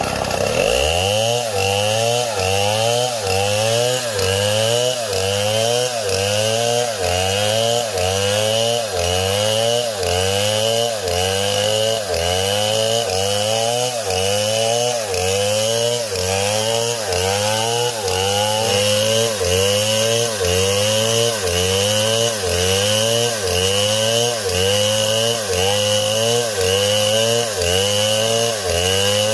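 Chainsaw engine running and revving up and down in a very even rhythm, a little faster than once a second, with a steady high whine above it.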